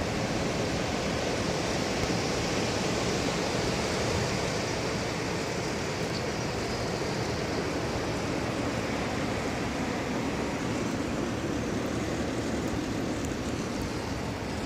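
Snowstorm wind roaring steadily overhead, a dense, even rush of noise with no breaks.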